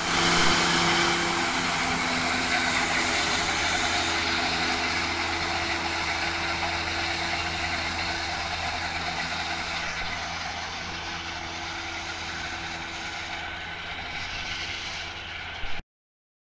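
McCormick MTX tractor's diesel engine running under load while its Fella disc mowers cut grass, a steady engine note under a dense whirring hiss. The sound slowly grows fainter and then cuts off suddenly near the end.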